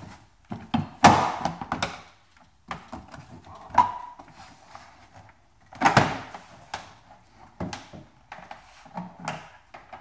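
Plastic clips of a Tesla Model S frunk cover panel popping loose as the panel is pulled up off the body, heard as a series of sharp snaps and plastic knocks, the loudest about a second in and again about six seconds in.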